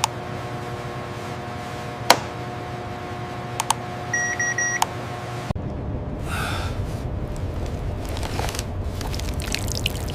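Steady electronic or machine hum with sharp clicks, the loudest about two seconds in, and a short high electronic beep about four seconds in. About five and a half seconds in, the hum cuts off and a noisier low rumble takes over, with a brief whooshing sweep soon after.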